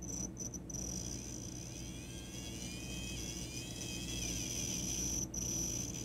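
Small electric motor of a 1950s TYCO Mantua 0-4-0 steam switcher running on hand-held test leads during a bench test for binding. It makes a steady high whine whose pitch rises and falls. It cuts out briefly twice near the start and once near the end.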